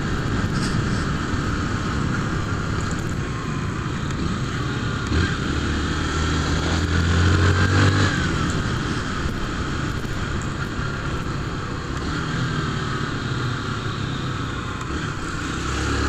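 Honda CG 150 Fan motorcycle's single-cylinder four-stroke engine running while riding in town traffic, with wind rushing over the helmet microphone. About a third of the way in, the engine note grows louder and rises for a few seconds, then settles back.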